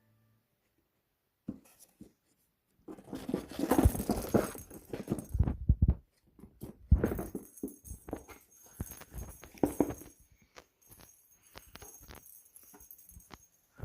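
A cat playing in a cardboard box: irregular scratching, rustling and knocks in uneven bursts, starting after a near-silent opening.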